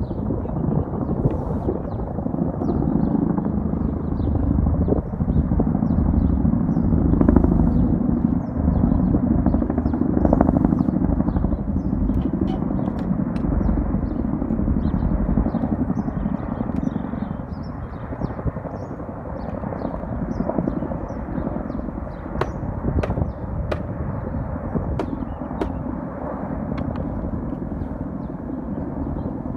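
A formation of Chinook tandem-rotor helicopters passing overhead: a continuous low, rapid rotor chop mixed with engine noise, growing somewhat fainter in the second half as they fly off.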